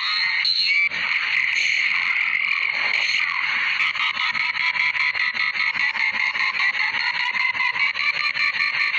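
A sneeze sound layered over itself an enormous number of times, merging into one continuous, dense, rapidly fluttering mass of noise.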